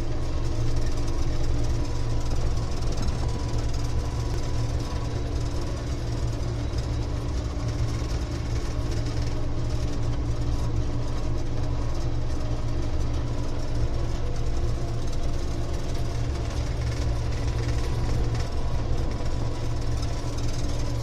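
Gleaner E combine running steadily while harvesting corn: a constant, even mechanical drone with a low engine hum.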